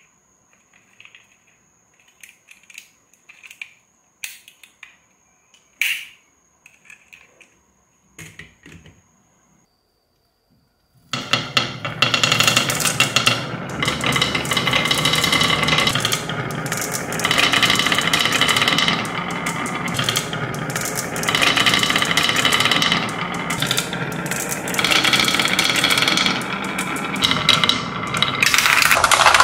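Light clicks and taps of a die-cast toy car being handled. After a brief pause, a loud, dense, continuous clatter of many marbles rolling down a zigzag wooden marble slope and knocking against its wooden walls.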